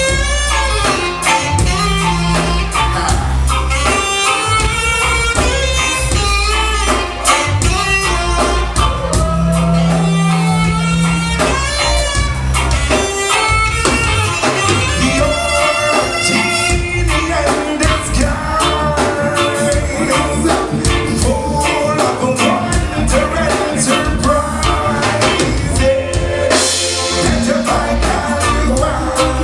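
Music with a drum kit and bass under a shifting melodic lead, playing steadily throughout.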